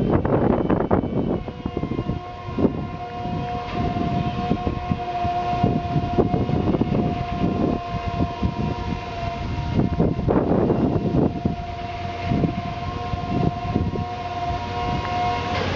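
Self-propelled transport trailer running as it drives, with a steady high whine that sets in about a second and a half in and stops just before the end, over a constant low rumbling noise.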